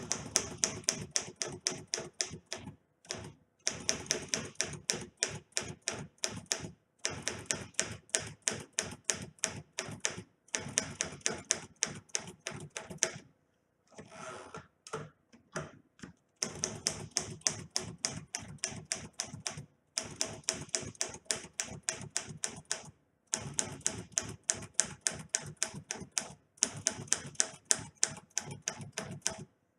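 Remington Quiet Riter portable manual typewriter being typed on: rapid runs of sharp key strikes, several a second, in stretches of a few seconds broken by short pauses, with a longer break about halfway through.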